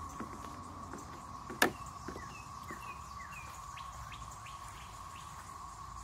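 Chorus of 13- and 17-year periodical cicadas, a steady high drone. A few short bird chirps come in about two to three seconds in, and a single sharp knock about a second and a half in is the loudest sound.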